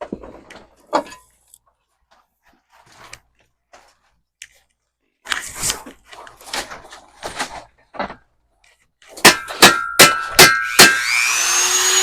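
Scattered knocks and clanks of tools and parts being handled. Then comes a quick run of sharp metal strikes, about two to three a second, that ring after each hit. Near the end a power tool spins up with a rising whine over a steady hiss.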